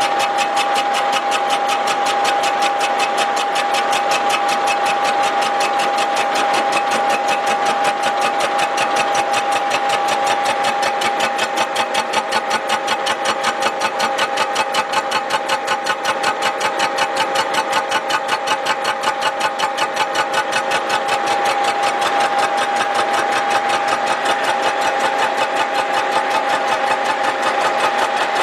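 Milling machine's face-milling cutter taking a decking cut across the cast-iron deck of a Willys L-134 engine block, flattening the warped surface. A steady whine with a rapid, even pulsing from the cutter's teeth striking the iron.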